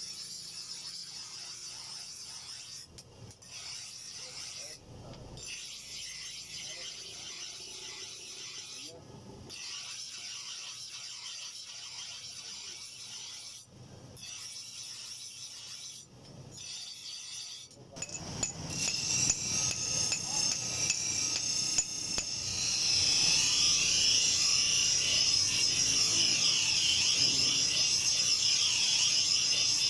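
Rasping and rubbing of abrasive work on a steel knife blade, in short stretches with brief breaks between them. Just past halfway it gives way to a louder, steadier high hiss of continuous abrasion.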